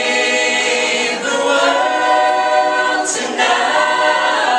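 A vocal group singing a cappella in held chords, shifting to a new chord about a second in and again around three seconds in, where a sung "s" cuts through.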